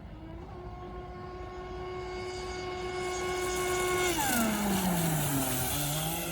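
High-pitched whine of an RC racing boat's Scorpion 5035 brushless electric motor running at steady speed and getting louder, with water hiss. About four seconds in, the pitch falls steeply as the throttle is eased off, then starts to climb again near the end as the power comes back on.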